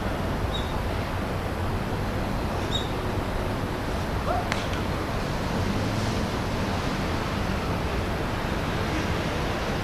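Steady outdoor background noise with no clear event, heaviest in the low end, like wind on the microphone or distant traffic; a faint click about halfway through.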